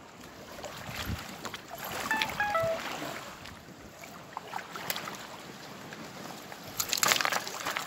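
Steady rush of river water with wind on the microphone, broken by rustling, scraping and clicks of handling on a stony bank, loudest about seven seconds in. A short whistle falling in three steps sounds about two seconds in.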